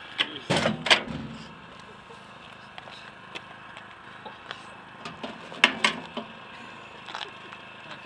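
Sharp clunks as a microwave oven's door is released and swung open, a cluster about half a second to a second in and another near six seconds, with footsteps on gravel.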